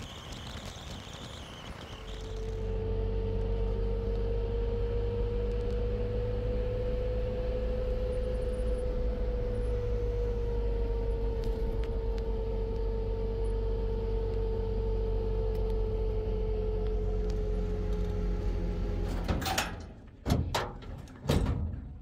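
A machine's motor starts about two seconds in and runs with a steady hum and whine, its pitch drifting slightly, then stops suddenly near the end, followed by a few sharp knocks.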